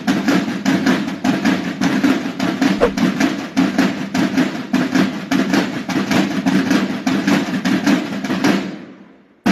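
Drums beating a fast, steady rhythm of about five strokes a second, fading out near the end.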